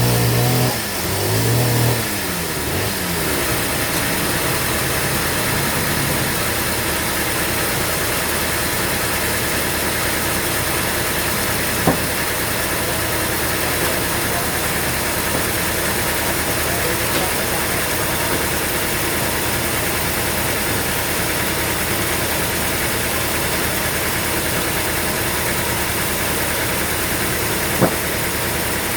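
An engine idling steadily after its pitch falls in the first two seconds, with two sharp clicks, one about twelve seconds in and one near the end.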